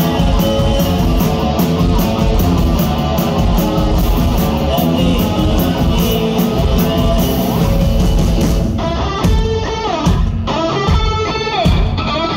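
Rock band playing live: electric guitars, bass and drums in a dense, loud mix. About three-quarters of the way through, the wash thins and a clearer lead line with bending notes stands out over the drum hits.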